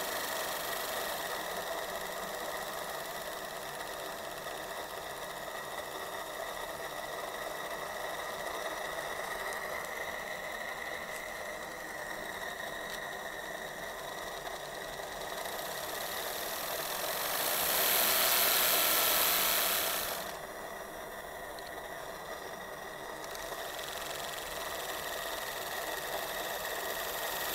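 Saito T2DR twin-cylinder model steam engine running steadily under steam, a fast even ticking beat. About seventeen seconds in, a louder hiss rises over it for about three seconds and then stops.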